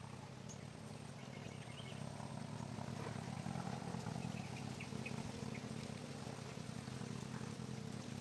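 Outdoor ambience: a steady low rumble, with scattered short high chirps of small birds or insects over it.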